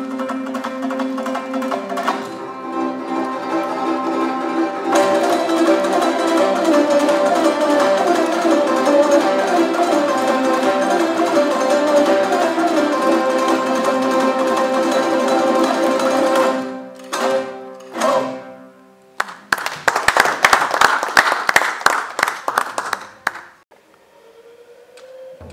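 Traditional Kazakh folk ensemble playing: plucked dombra-style lutes and a zither over a steady drone. About 16 seconds in the music breaks into a few sharp single strokes, then a loud burst of rapid, dense strokes, and it drops away quietly near the end.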